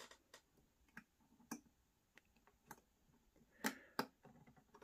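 Faint, irregular small clicks and taps of fingers fiddling a wire connector onto a Peco point motor, the two clearest near the end.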